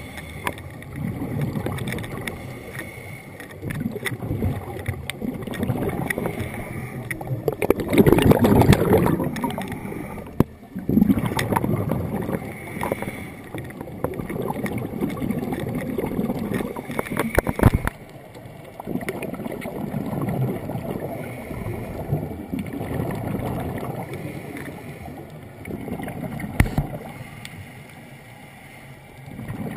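Scuba diver breathing through a regulator, heard through an underwater camera housing: exhaled bubbles gurgle past in surges every few seconds, with quieter pauses and scattered clicks between breaths.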